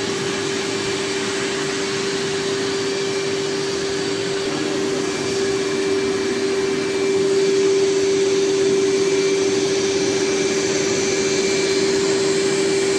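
Fakir Deluxe Öko Line 9800S carpet-washing machine, a wet spray-extraction vacuum, running with a loud, steady whine as its narrow upholstery nozzle works over a fabric sofa. The whine gets a little louder and fuller about halfway through.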